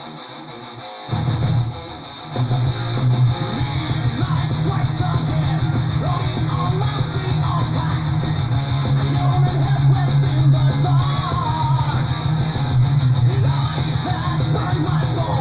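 Melodic power metal recording playing instrumentally, led by electric guitars. After a quieter opening with a brief hit about a second in, the full band comes in about two seconds in.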